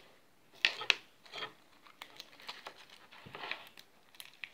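Hands working a sticky, grainy yellow slime in a small plastic tub, giving irregular crackling and rubbing sounds. Two sharp clicks come a little under a second in.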